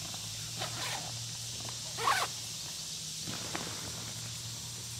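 Zipper and heavy nylon fabric of an inflatable paddleboard's carry backpack being worked open: a few short rasps, the loudest about two seconds in.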